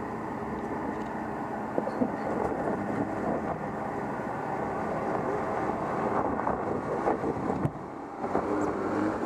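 Jeep Grand Cherokee driving slowly over a rutted dirt track, its engine running at low revs while the tyres crunch over dirt and stones with scattered clicks. It grows louder as it draws close and passes by in the later seconds.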